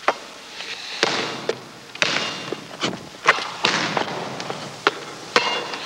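Basketball dribbled on a hardwood gym floor: a string of sharp, unevenly spaced bounces that echo in the gym.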